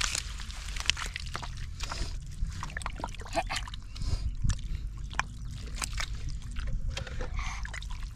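Shallow muddy water sloshing and splashing in irregular bursts, with sharp clicks and squelches, from fish being caught by hand in a drained wetland.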